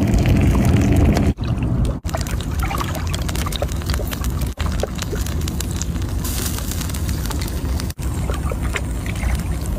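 Juices sizzling and bubbling in sea snail shells on a hot stone slab: a dense crackling hiss over a steady low rumble, cutting out for an instant a few times.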